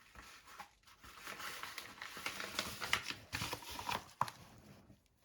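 Paper envelope and packaging rustling and crinkling as hands search through it, with a few small sharp clicks mixed in.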